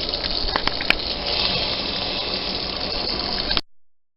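Water running from a kitchen tap, a steady rush, with a few sharp clicks about a second in; it cuts off suddenly near the end.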